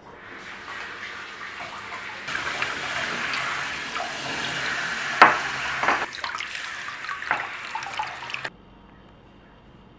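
Kitchen tap running into a sink, with a few sharp clinks of dishes or utensils knocking in the basin; the water stops abruptly about eight seconds in.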